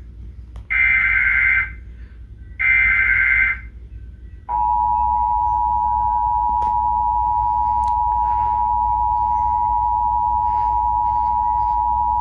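Emergency Alert System tones for a Child Abduction Emergency. First come two SAME header data bursts, harsh digital screeches about a second each. About four and a half seconds in, the two-tone EAS attention signal starts and holds steadily, all over a low hum.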